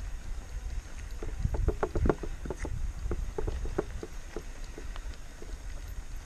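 Mountain bike rolling over a rough dirt and stone track: irregular knocks and rattles from the bike and its tyres hitting stones, busiest about one and a half to two seconds in, over a steady low wind rumble on the microphone.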